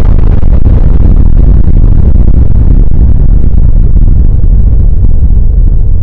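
Loud, distorted rumble of an explosion sound effect, heavy in the bass, its higher hiss slowly dying away as the blast tails off.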